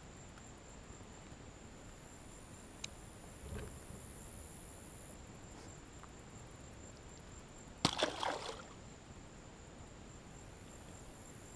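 Faint open-water background from a small boat, then about eight seconds in a single short splash, the sound of a largemouth bass dropped back into the lake.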